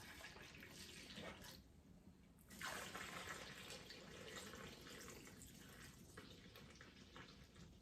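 Apple cider being poured from a bottle over turkey legs in a brine container, liquid splashing in a faint, steady stream. It pours for about two seconds, pauses, then pours again for longer.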